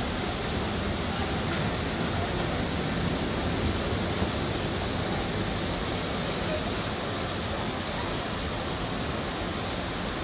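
Steady rushing outdoor ambience at a constant level, with no single sound standing out.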